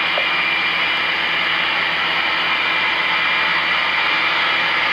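Sound-equipped HO scale model diesel locomotive playing its engine sound through its small onboard speaker: a steady hissing drone with no change as the train rolls along.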